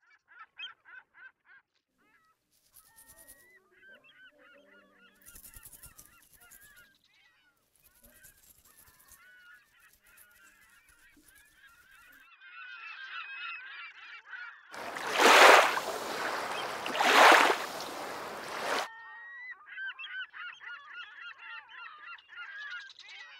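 A flock of birds honking and calling over and over in quick, wavering calls. About two thirds of the way through, a loud rushing noise swells up twice, drowning them out for a few seconds.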